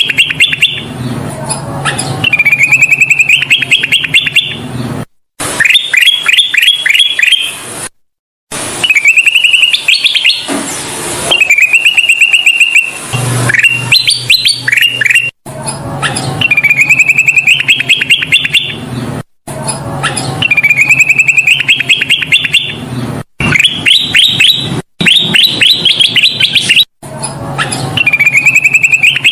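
Kutilang emas, a bulbul, singing loud repeated song phrases: a wavering note followed by a quick run of rising chirps, one phrase every three to four seconds. The song is broken by brief, sudden silent gaps where the recording is spliced.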